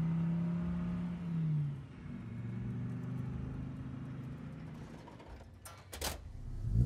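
Heavy truck engine running steadily, dropping to a lower, rougher pitch about one and a half seconds in, then holding. Short loud hits come near the end, followed by a quick rising sweep.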